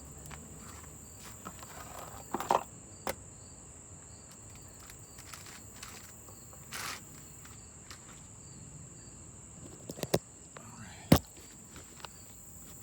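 Crickets chirping in a steady high drone, with a few sharp clicks and knocks from parts being handled: a small cluster a couple of seconds in and the loudest single knock near the end.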